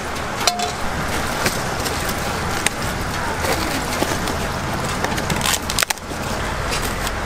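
A foil-lined paper takeaway box being handled and folded shut, with a few sharp clicks and crinkles over a steady background hiss.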